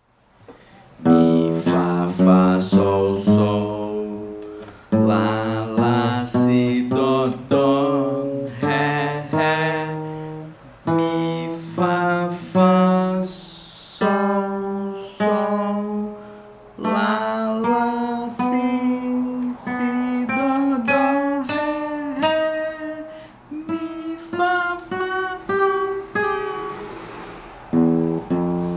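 Acoustic guitar playing single plucked notes one after another along the neck, each note ringing and fading before the next, starting about a second in.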